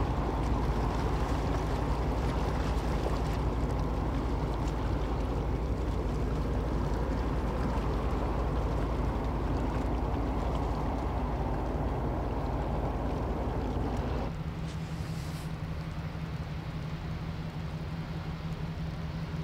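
Passing tanker's engine giving a low, steady drone with some water noise. About 14 seconds in it cuts off abruptly to a quieter low hum.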